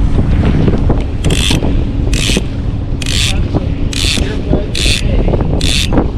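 Fishing reel ratcheting in short, evenly spaced bursts, about one a second, over the steady low hum of the boat's motor.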